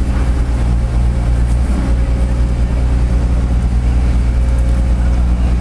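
Steady low hum of a large engine or machinery running, its pitch and loudness unchanging.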